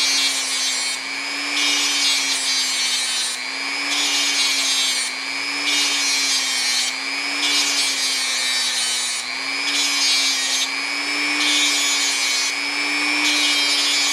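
Small power grinder running steadily while metal is ground. The grinding comes in repeated passes of a second or two each, rounding and trimming the end of an RC boat flex cable drive part.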